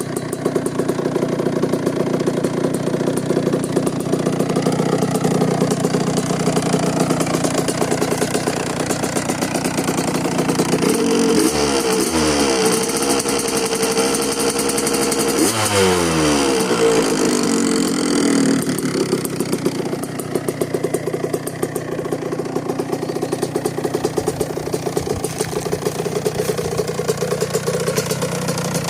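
Rieju RV motorcycle engine idling with a fast, even pulse. About eleven seconds in it is revved up, held high for about four seconds, then falls back to idle.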